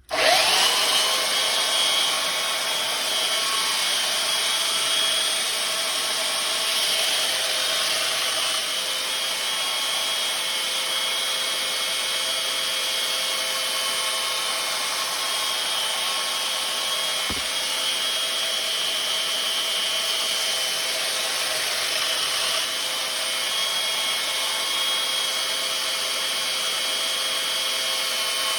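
Electric power tool grinding the steel edge of a splitting maul: a steady grinding noise that starts suddenly, with a steady motor whine over it, taking off the burr left from sharpening.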